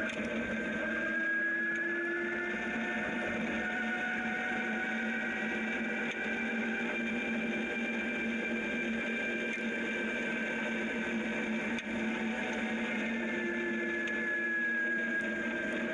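Zero DSR electric motorcycle riding on a gravel road: a steady whine from the electric motor and drivetrain, made of several held tones that rise slightly a second or two in and sink again near the end as the speed changes, over the hiss of the tyres on gravel.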